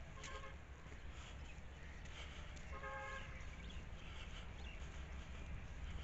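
A bird calls twice, a short call near the start and another about three seconds in, over a steady low rumble.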